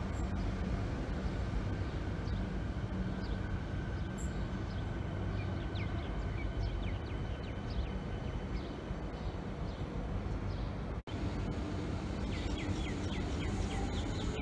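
Metro suburban electric train running through the station: a steady rumble and hum, with short high chirps over it in places and a brief dropout about two-thirds of the way through.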